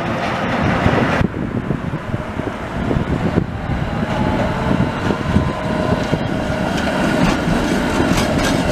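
Tram running along street track, wheels clicking over the rails, as a Budapest Tatra T5C5 articulated tram comes up and passes close by.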